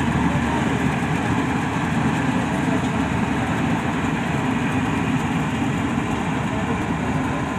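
Combine harvester running steadily, its diesel engine and machinery making a dense, unchanging rumble.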